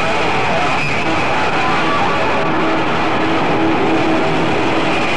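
Live heavy metal band playing loud: a dense, steady wash of sound with a few held guitar notes, as on an old concert videotape.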